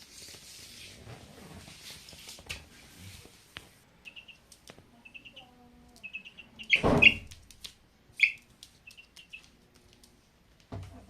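Young chicks cheeping in short, repeated peeps, with one louder burst of peeping and rustling about seven seconds in. A soft rustling hiss fills the first few seconds.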